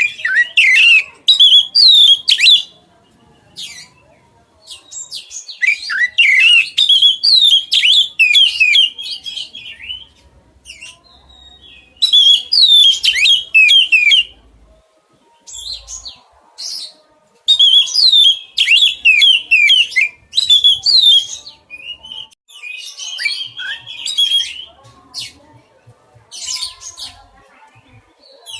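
Oriental magpie-robin (kacer) singing in loud, rapid, varied phrases of quick whistled notes, about six bursts of one to four seconds each with short pauses between them.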